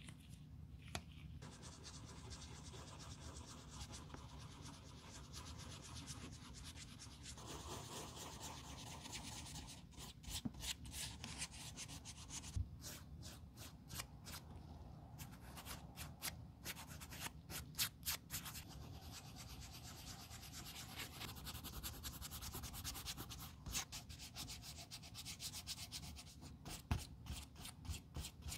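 A small piece of sandpaper is rubbed by hand over the scuffed leather toe of a Blundstone boot, smoothing the scuffed area. It is a faint, continuous scrubbing at first, then quick separate strokes from about a third of the way in.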